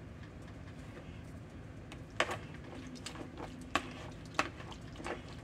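A few sharp, light clacks of a wire potato masher against a plastic mixing bowl while soft boiled yellow squash is mashed, spread over the second half.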